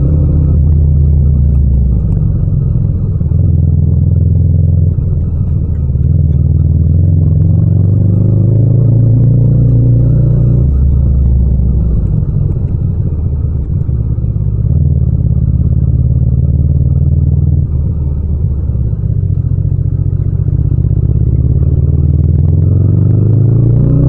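Yamaha MT-07's 689 cc parallel-twin engine running under the rider, its pitch shifting up and down with the throttle and rising near the end as it revs.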